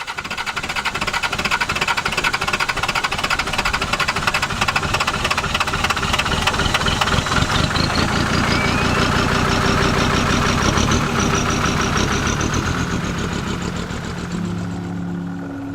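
Off-road vehicle engine running hard with a rapid firing beat, a whine rising in pitch through the middle as it pulls. It fades near the end as music comes in.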